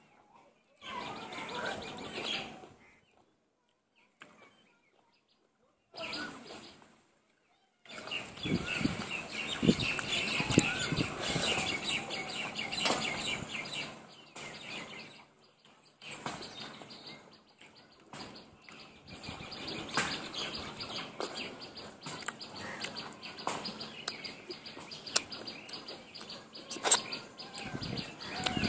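Birds chirping and calling, mixed with the small clicks and smacks of eating by hand: chewing, and fingers working rice on a metal plate. The sound drops to dead silence for short stretches in the first several seconds, then runs on continuously.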